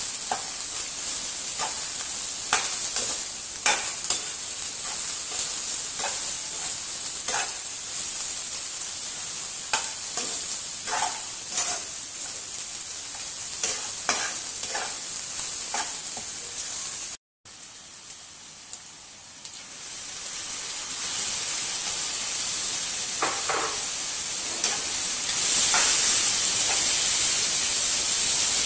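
Mutton and sliced onions sizzling in a nonstick wok while a spatula stirs, scraping the pan about once a second. After a short break, tomatoes and vegetables frying in the same wok, the sizzle growing steadily louder toward the end.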